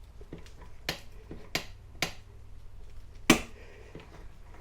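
Click-type torque wrench on the motorcycle's rear axle nut clicking as it reaches its set torque of 72.5 foot-pounds: four sharp single clicks spaced roughly half a second to a second apart, the loudest about three seconds in.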